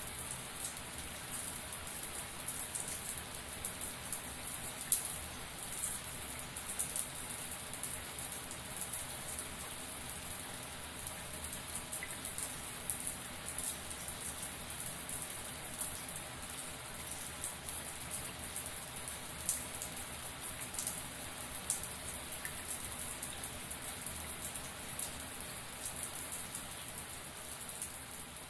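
Shower running steadily: a constant hiss of water spray with many scattered sharp drop hits, one clearly louder about five seconds in.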